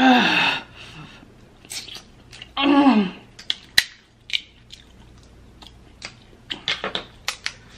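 Snow crab leg shells cracking and snapping by hand, with sharp scattered clicks and chewing, the clicks thickest near the end. Twice, near the start and about three seconds in, a short moan falling in pitch: a reaction to the burn of the spicy sauce.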